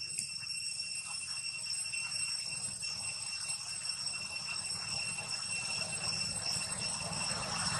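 Steady, unbroken high-pitched drone of insects in the surrounding woodland, over a low rumble.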